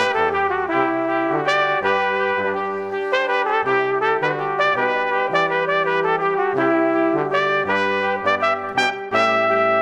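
Instrumental background music with a brass lead melody over a stepping bass line, ending on a held chord.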